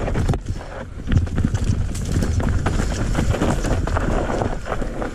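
Mountain bike descending a dirt trail at speed: a fast, irregular clatter of chain slap, suspension and frame knocks over bumps, with tyre noise. There is a steady rumble of wind on the microphone.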